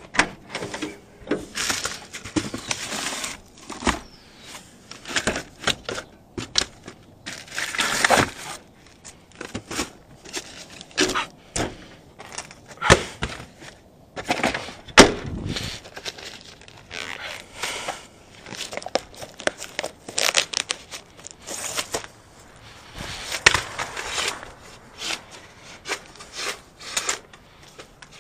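Irregular rustling, clicks and clatter of handling: white coaxial cable being pulled off a plastic spool and uncoiled.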